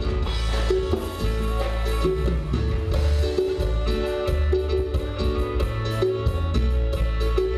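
Live band music with a steady dance beat: electric guitar and keyboard over a heavy bass line and a drum kit with regular cymbal strokes.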